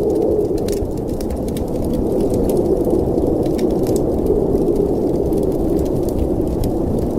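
Wood fire crackling with many irregular sharp pops, over a steady low rush of snowstorm wind.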